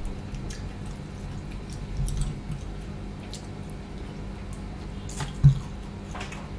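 Close-miked wet eating sounds of rice and fish curry eaten by hand: soft chewing, lip smacks and sticky finger sounds as the fingers are licked, with a sharp low thump about five and a half seconds in.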